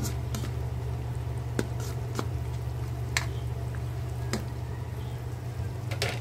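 A spatula stirring chunks of chicken in a metal wok, with about half a dozen short scrapes and taps against the pan, over a steady low hum.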